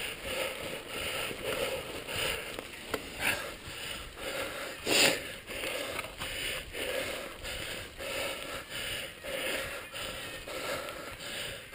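Mountain bike rolling down a dry dirt trail: tyres crunching over the dirt and the bike rattling, with the rider's heavy breathing swelling about twice a second. A sharp knock about five seconds in as the bike hits a bump.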